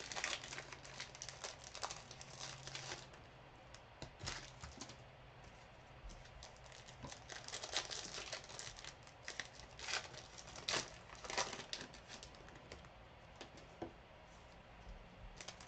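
Trading-card pack wrappers being torn open and crinkled by hand, in irregular rustling bursts with short pauses between them.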